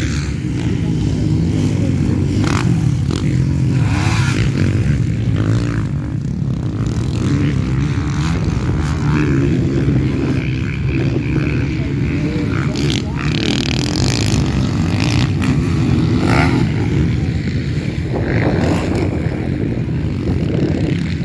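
Several motocross dirt bikes' engines revving and easing off as they ride round the track, their pitch rising and falling, over a heavy steady low rumble.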